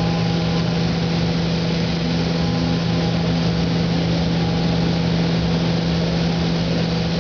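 Steady hum and rushing air of a spray booth's fans, with the hiss of a compressed-air spray gun laying down clear coat, unchanging throughout.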